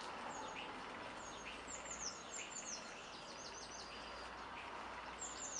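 Outdoor background noise with small birds chirping: many short, high, quickly falling chirps scattered throughout over a steady hiss.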